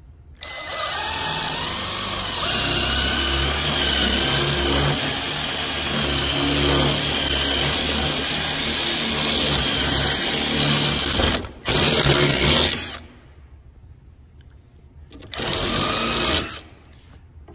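Craftsman 16.2-volt cordless drill running a bit into a rivet on a metal bumper bracket to drill it out, the motor's pitch wavering under load. One long run of about eleven seconds, then a short burst right after and another about three seconds later.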